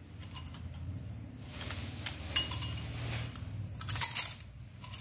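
Stainless steel parts of a kitchen press (murukku maker) clinking and knocking together as they are handled, several knocks leaving a short metallic ring. The sharpest knocks come about halfway through and in a quick cluster near the end.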